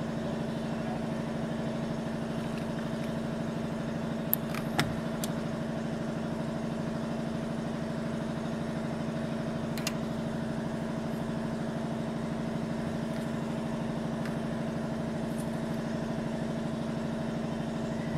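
A steady engine-like hum runs underneath throughout. A few sharp clicks come about four and five seconds in and again near ten seconds.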